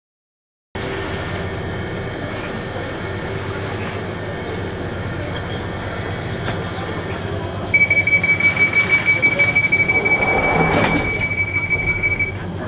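London Underground train carriage running, a steady rumble that starts just under a second in. About eight seconds in, a high steady tone wavering in loudness comes in over the rumble for about four seconds, with a brief swell of noise near its end.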